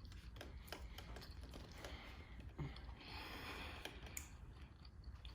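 Faint eating sounds: soft clicks and mouth noises of chewing chicken nuggets, with a short rustle about three seconds in.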